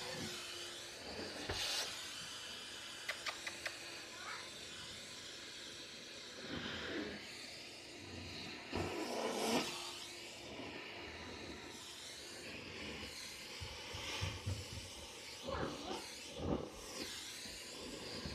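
Vacuum cleaner running with its wand nozzle pressed into a longhaired cat's fur: a steady airflow hiss that swells and wavers as the nozzle moves through the coat, with a few quick light clicks about three seconds in.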